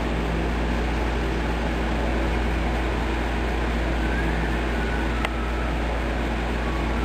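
Steady hum and hiss of background machine noise, with a single sharp click about five seconds in.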